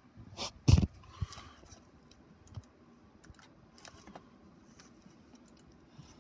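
Scattered, irregular clicks of computer keyboard keys, with a louder knock just under a second in.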